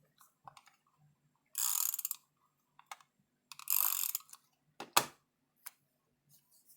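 Adhesive tape runner ratcheting in two short strokes as adhesive is laid on paper card pieces, then a sharp click about five seconds in.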